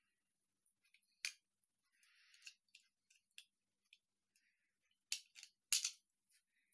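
Craft knife scraping and nicking a cast-plastic figurine: scattered sharp clicks and a short scratchy scrape, with the loudest clicks clustered near the end.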